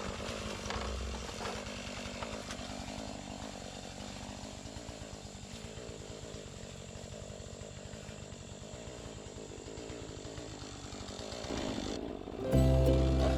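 Two-stroke gas chainsaw running steadily. About twelve seconds in it stops being heard and loud music starts.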